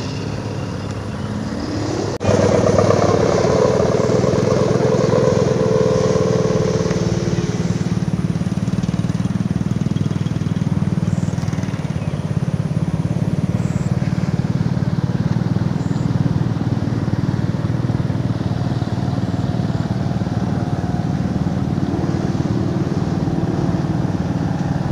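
Wind buffeting the microphone: a steady low rushing roar that jumps suddenly louder about two seconds in. A wavering hum rides over it for several seconds after the jump.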